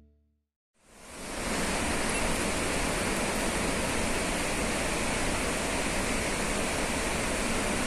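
Steady rush of running water, fading in after a moment of silence and holding at an even level.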